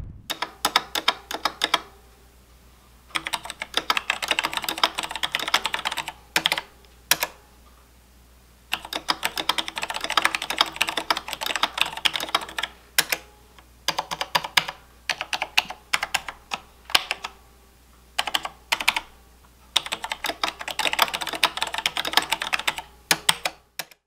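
Typing on a Logitech G613 mechanical keyboard with Romer-G tactile switches: rapid key clicks in runs of a few seconds, broken by short pauses.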